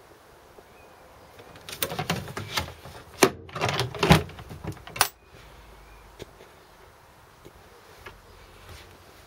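A run of knocks and rattling clatter from metal panels and fittings being handled in a Land Rover's cab, lasting about three seconds and ending in a sharp click.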